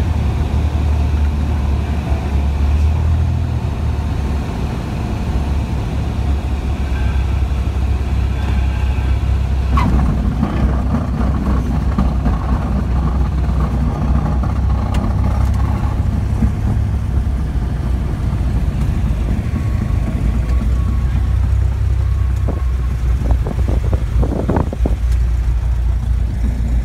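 Cessna 172's piston engine and propeller running steadily at low power, a low drone heard inside the cabin as the plane rolls on the ground. A few short knocks come near the end.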